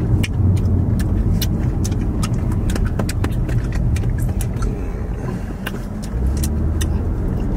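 Steady low road and engine rumble inside a moving car's cabin, with many scattered light clicks and taps over it.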